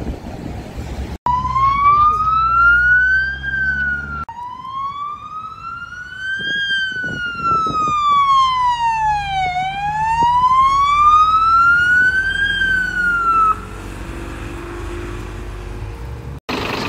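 Fire engine siren in a slow wail, climbing and falling in pitch over a few seconds at a time, broken off briefly about four seconds in and cutting off near the end. A heavy engine rumbles low beneath it and after it stops.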